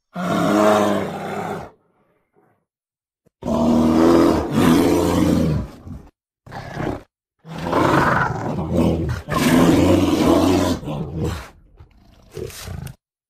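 Bear roaring and growling: a series of about five roars, each one to two seconds long, with short silent pauses between them.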